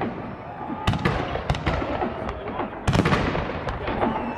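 Festive fireworks salute: two heavy shell bursts, about a second in and again near three seconds, each trailing off into crackling, with smaller pops in between.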